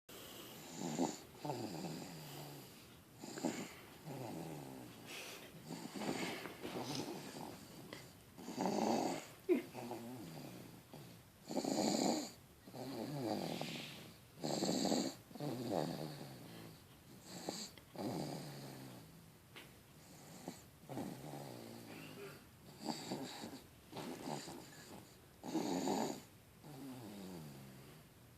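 Baby snoring in its sleep: rough, pitched snoring breaths coming every second or two in a steady rhythm.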